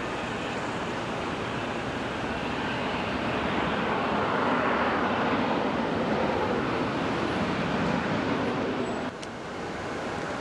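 Gulfstream business jet's engines during the landing rollout: a steady jet rush that swells for a few seconds in the middle, then cuts off abruptly to a quieter rush about nine seconds in.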